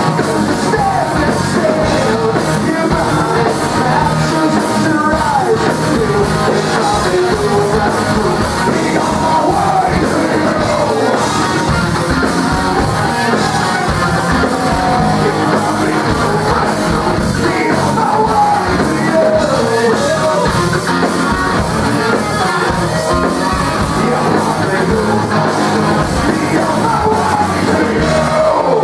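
Rock band playing live with a lead singer's voice over the instruments.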